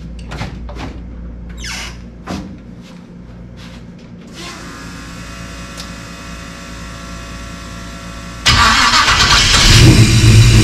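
Footsteps and knocks as someone walks up and climbs into the car, then a faint steady hum from about four seconds in. Near the end the GM engine of a 1940 Ford is cranked by its newly installed Power Master starter, catches suddenly and runs loud: a test start after checking the starter pinion's engagement with the flexplate.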